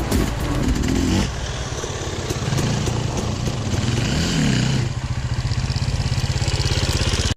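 Enduro motorcycle engine running, revving up briefly about four seconds in, then dropping to a steady, even putter at idle before the sound cuts off suddenly.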